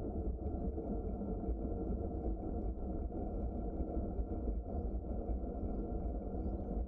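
Steady low rumble of bicycle tyres rolling along a trail.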